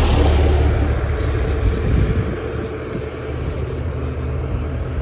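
Road traffic: a vehicle passing close by, its hiss loudest right at the start and fading over the next couple of seconds, over a steady low rumble.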